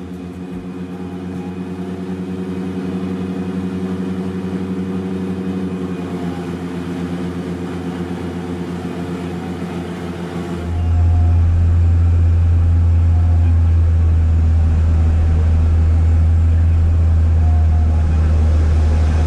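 De Havilland Canada Twin Otter's twin turboprop engines and propellers droning steadily on final approach to land. About ten seconds in the sound changes suddenly to a louder, deeper rumble that holds through the landing.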